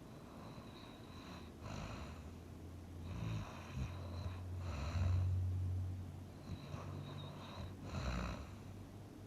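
A person snoring in sleep: a low droning snore that is loudest about five seconds in, with breathy rasps at the breaths.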